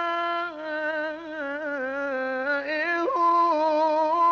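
A male Quran reciter's voice drawing out the word "bimā'" in a long, ornamented melodic line in the mujawwad tajweed style, with a short break about three seconds in. The sound is dulled at the top, as on an old reel-to-reel tape.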